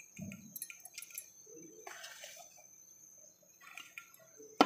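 Hand mixing gram flour into chopped potato, onion and spinach in a glass bowl: soft rustling with scattered small clicks, and one sharp knock near the end.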